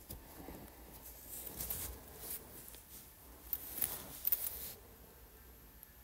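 Faint kitchen handling: a run of short scrapes and rustles of a spoon and bowls as freshly churned butter is scooped out, the loudest few about two-thirds of the way through.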